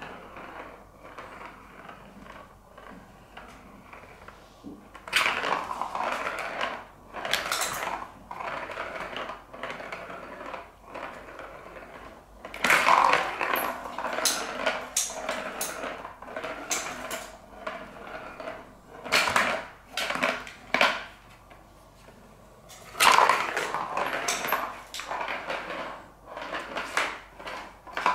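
A ball rolling and rattling around a plastic ball-track cat toy as a cat bats it, in several runs of a few seconds each with sharp knocks against the track.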